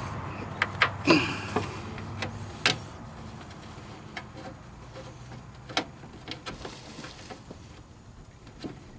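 Scattered sharp metallic clicks and taps of a hand wrench and a threaded fitting being worked onto a truck radiator, several close together in the first three seconds and a few later on, over a low steady hum.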